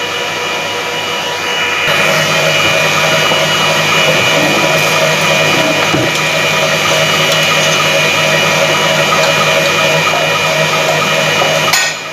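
Kitfort electric stand mixer running steadily, its whisk beating egg whites into meringue for the cream; the motor sound gets louder about two seconds in.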